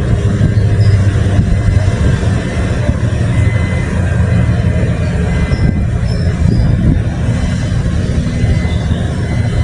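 Heavy construction machinery at bridge piling work running with a loud, steady low rumble.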